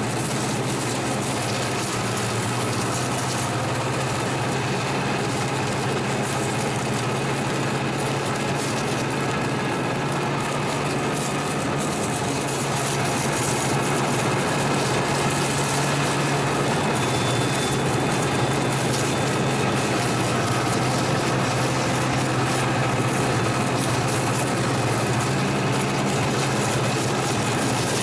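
Two-stroke snowmobile engine running steadily while the sled travels along a trail, heard from on board. It gets a little louder about halfway through.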